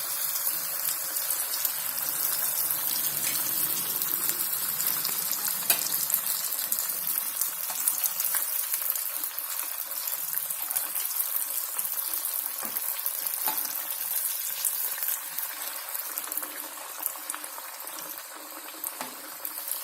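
Vermicelli-coated potato cutlets sizzling and crackling in hot oil, freshly added to the pan. The sizzle eases a little near the end.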